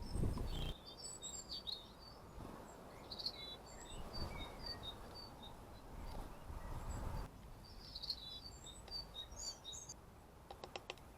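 Small garden birds chirping and twittering: runs of short, high notes in two spells, over a low background rumble. A brief louder low-pitched rumble comes right at the start.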